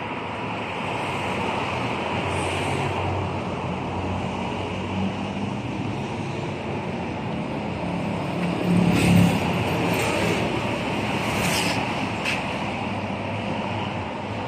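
Steady road traffic: cars and motorcycles running past, with one vehicle passing loudest about nine seconds in.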